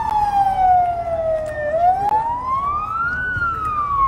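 Emergency-vehicle siren in a slow wail. Its pitch falls for nearly two seconds, rises for about a second and a half, then starts to fall again.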